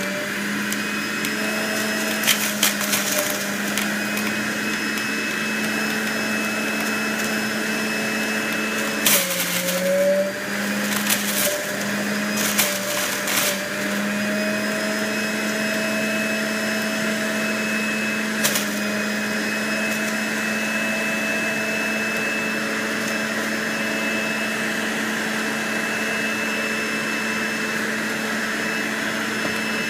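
Breville BJE510XL centrifugal juicer's motor running steadily on its soft speed setting as vegetable pulp is fed through it for a second pass. About nine seconds in, its pitch sags and wavers for a few seconds as it slows under the load, then steadies. A few sharp knocks are heard along the way.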